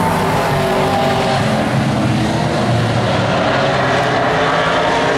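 A pack of vintage modified race cars running at speed. Several engines drone together, loud and steady, their pitches wavering up and down as the cars lap.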